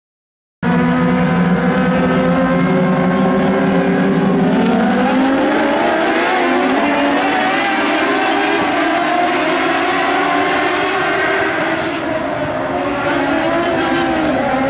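A pack of Mod Lite dirt-track race cars running together, several engines heard at once. It cuts in suddenly just under a second in, and the engines' pitch climbs about five seconds in as the field accelerates.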